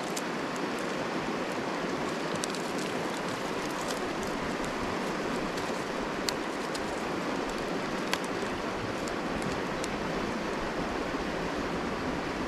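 Steady rushing of a river flowing past, with a few faint sharp clicks from dry sticks being handled and bound into a bundle.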